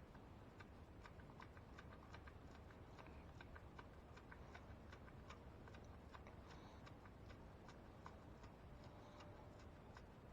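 Faint clicking of a ratchet wrench, a few clicks a second, as the camshaft position sensor's bolt is run in.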